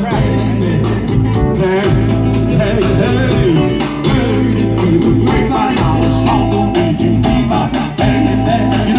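Rock-style band music with a singing voice over a steady bass line.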